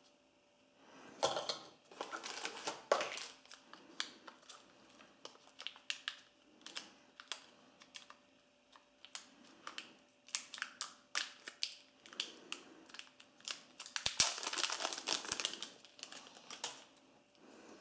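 Hands handling a phone's boxed accessories: irregular small clicks and taps of the plastic wall charger and USB cable, with crinkling of plastic wrapping, busiest about a second in and again near the end.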